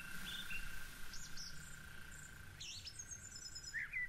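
Birds chirping in short, repeated calls, with a faint steady high tone underneath.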